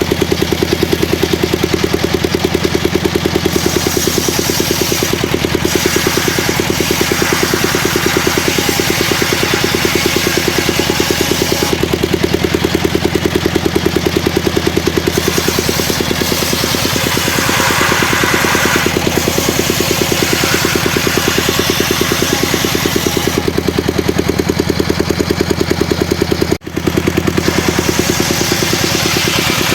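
Engine of a homemade circular saw machine running steadily with a fast, even firing rhythm, while the saw runs and the hiss of the blade in wood rises and falls.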